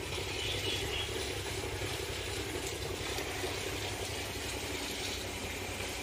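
Steady outdoor hum with an even hiss over it, unchanging and with no distinct events.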